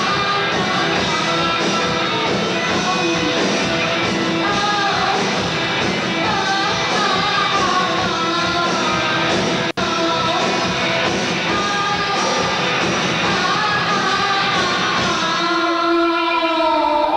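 Live rock band playing with a woman singing. The sound cuts out for an instant about ten seconds in, and near the end the drums and bass fall away, leaving held notes ringing as the song closes.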